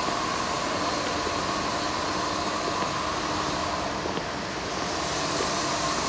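Steady mechanical drone with a faint high whine held over it, even throughout with a slight dip about four seconds in.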